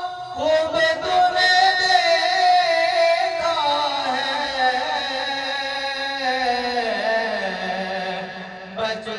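A man's solo voice singing a naat, an Urdu devotional poem, through a microphone: a long drawn-out phrase of held notes that slide slowly down in pitch over several seconds. The voice drops away briefly near the end and a new phrase begins.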